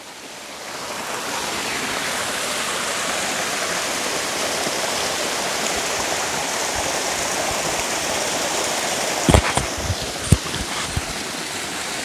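Small waterfall splashing over rocks into a creek pool: a steady rush of water that grows louder over the first second or so. A few sharp thumps about nine to ten seconds in.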